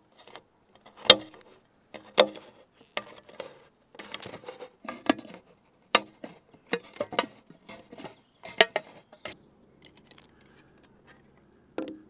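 Swiss Army knife can opener cutting around the lid of a tin can with the classic down-and-up levering stroke: a short, sharp metallic crunch with each stroke, roughly one a second, stopping about nine seconds in. One more click comes just before the end.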